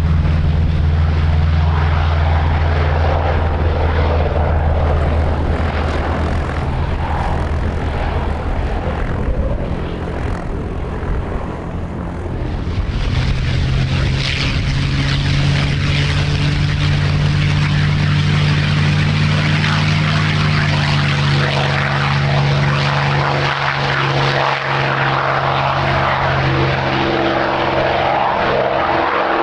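Piston engines of WWII propeller warbirds running with a steady, deep engine note. About 13 seconds in the sound grows fuller and harsher, and later on the pitch of the engine tones shifts.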